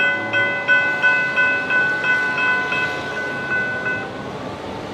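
Railroad grade-crossing warning bell ringing about three strikes a second as the crossing activates for an approaching train, stopping about four seconds in.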